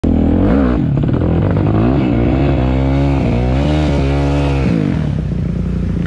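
Enduro dirt bike engine revving up and down repeatedly in short blips, its pitch rising and falling several times, then dropping to a lower, steadier run about five seconds in.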